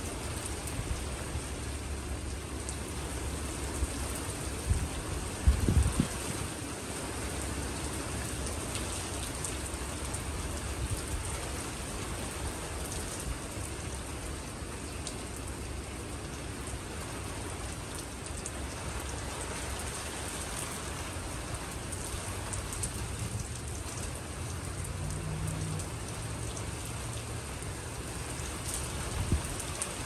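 Steady heavy rain of a winter rainstorm falling and pattering on surfaces, with a few louder low thumps about five to six seconds in.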